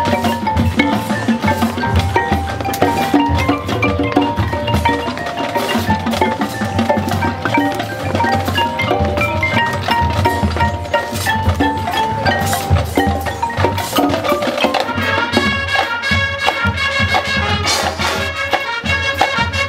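Marching band playing live: marimbas and other mallet percussion carry a busy melodic line over drums, and about three-quarters of the way through, held brass chords come in and fill out the sound.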